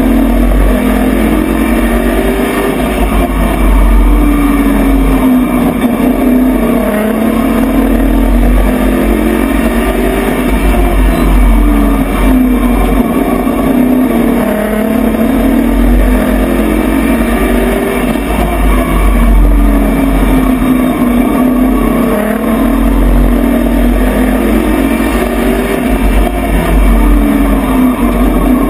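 A Pro Truck race truck's engine, heard from inside the cab, running at racing speed with its pitch rising and falling again and again as it accelerates down the straights and lifts for the turns, over a steady low rumble.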